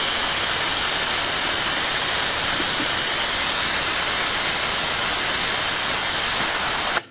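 SMC ZK2 energy-saving vacuum ejector exhausting compressed air with a loud, steady hiss while its suction cup picks up a workpiece. Near the end the hiss cuts off suddenly: the vacuum has reached the set pressure and the pressure switch has shut the supply valve, so the ejector stops consuming air.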